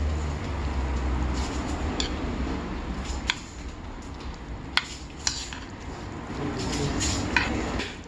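Metal chopsticks tossing and mixing sauced noodles in a bowl, with scattered sharp clicks of the chopsticks against the bowl. A low hum sits under the first second or so.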